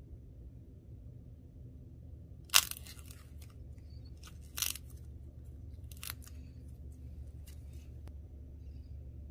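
The dried blue metallic coating on a ball of soft clay cracking and flaking as fingers squeeze it. A sharp crack comes about two and a half seconds in, another about two seconds later and a third a second and a half after that, with fainter crackles between and after them.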